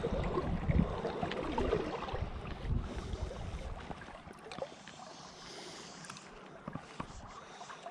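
Wind rumbling on the microphone in gusts, easing about halfway through, with faint swishes and small clicks from a fly line being cast and handled.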